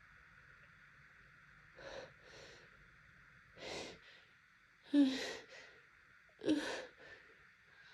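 A woman's sharp breaths, sniffs and sighing gasps as an allergy sneeze builds: a few short breathy noises, then two louder gasps with a catch of voice about five and six and a half seconds in.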